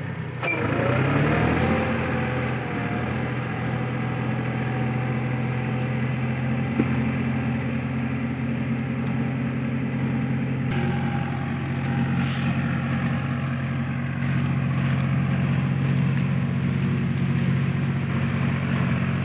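Powertrac Euro 45 Plus tractor's diesel engine running hard under load while stuck in deep mud. The revs climb in the first couple of seconds, then hold steady.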